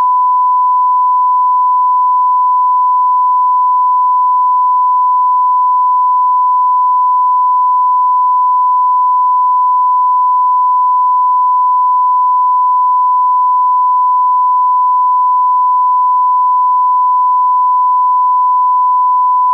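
Continuous 1 kHz test tone: a single pure, steady beep that never breaks or changes pitch, the kind of tone played over a 'no signal' broadcast screen.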